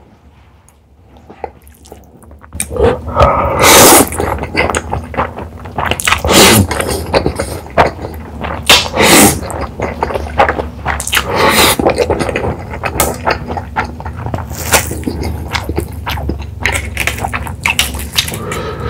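Spicy Buldak stir-fried noodles slurped loudly from chopsticks, in a string of slurps every two to three seconds after a quiet first couple of seconds, with wet chewing between them.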